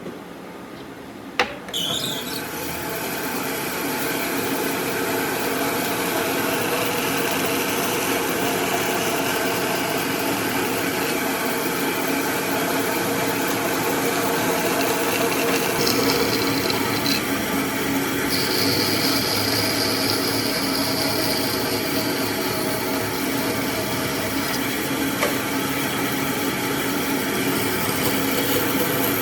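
A power tool running steadily against wood, starting after a sharp click about a second and a half in and building up over the next two seconds.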